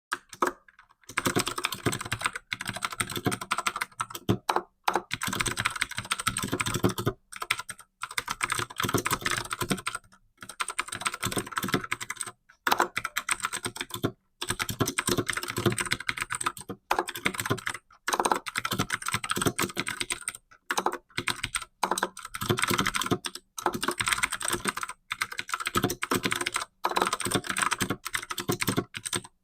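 Fast typing on a computer keyboard during a typing test: a rapid, continuous run of key clicks, broken every few seconds by brief pauses.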